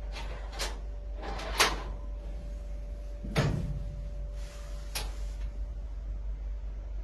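Stainless steel clinic cage door being unlatched and swung open: a few sharp metal clicks and clanks, the sharpest about a second and a half in, with a duller knock about halfway through, over a faint steady hum.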